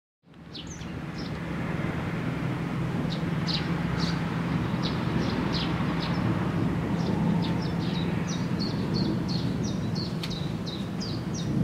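Small birds chirping in short repeated calls, coming more often toward the end, over a steady low rumble.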